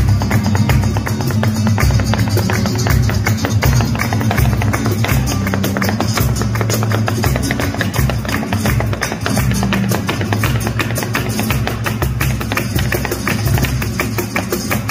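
Live flamenco music: an acoustic guitar playing, with a dense, rapid run of sharp percussive taps over it.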